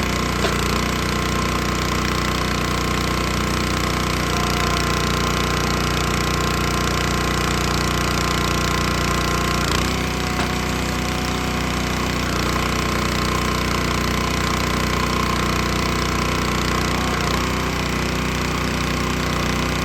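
Small gas engine running at a steady, unchanging speed, with an even low pulse.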